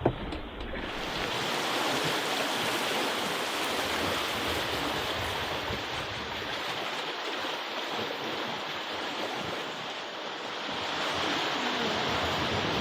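Steady wash of sea water rushing along a sailing yacht's hull as it moves under sail, with some wind.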